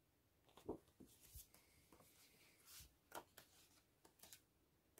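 Glossy photobook pages being turned by hand: a few faint rustles and soft taps of paper against near silence.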